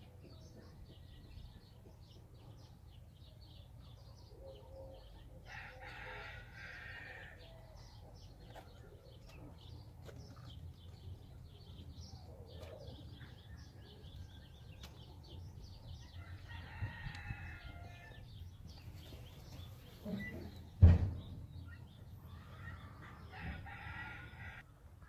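Roosters crowing faintly three times, each call lasting a second or two, with small birds chirping throughout over a steady low rumble. A single sharp thump a few seconds before the end is the loudest sound.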